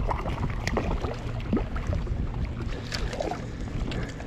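Water splashing and dripping in short, irregular splashes as a large cutthroat trout is brought into a landing net, over a steady low rumble.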